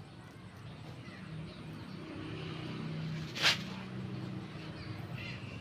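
A single sharp knock about three and a half seconds in, over a low steady background murmur.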